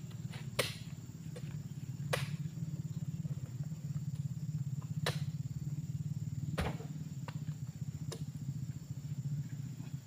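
Truck engine running with a steady low hum, with sharp knocks about every one and a half seconds.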